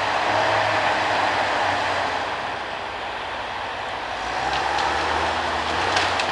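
Log skidder's diesel engine running under load, easing off slightly mid-way and picking up again about four seconds in. A few sharp clicks are heard near the end.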